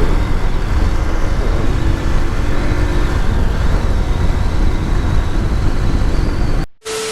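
Motorcycle riding at speed: loud wind buffeting on the microphone over road and engine noise, with a faint steady engine hum. It cuts off abruptly near the end.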